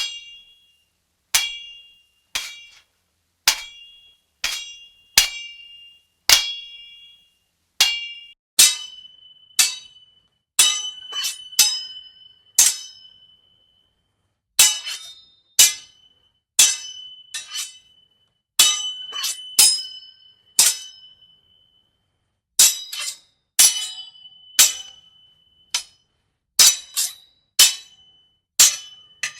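Medieval steel swords clashing blade on blade: a series of sharp metallic clangs, each ringing briefly before dying away, some single and some in quick flurries of two or three strikes, with short pauses between.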